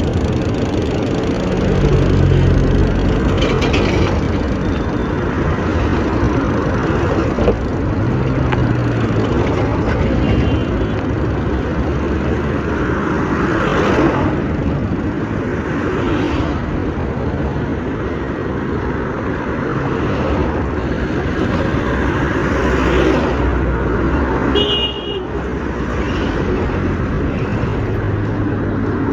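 Road traffic noise: engines and tyres of passing vehicles, swelling as they go by, with a short horn toot near the end.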